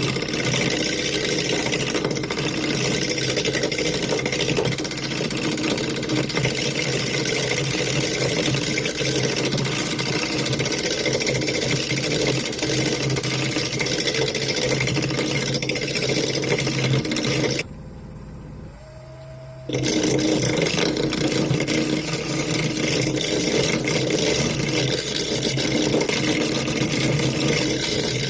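Wood lathe running while a turning tool cuts a pine bowl, a steady rushing hiss over the motor's hum. The cutting breaks off for about two seconds a little past halfway, leaving only the motor's rising hum, then starts again.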